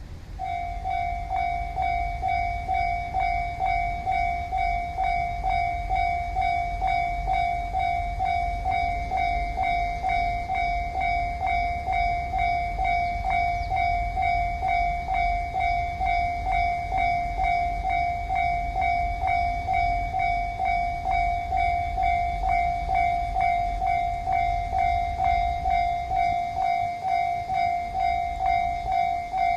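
Railway level crossing warning bell ringing in an even repeated pattern of about two strikes a second, starting about half a second in: the crossing's signal that a train is approaching.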